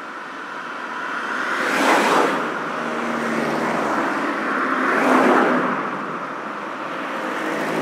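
Highway road noise, with two vehicles swelling past and fading, about two seconds in and again about five seconds in.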